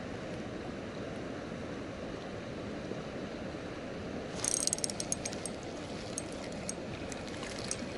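Spinning reel being wound in, its mechanism giving a fast run of small clicks from about four and a half seconds in, over a steady outdoor hiss.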